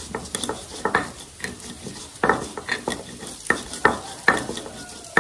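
Pestle grinding garlic, pepper and salt in a cobek (Indonesian mortar): an uneven run of scraping strokes and sharp knocks, about two a second.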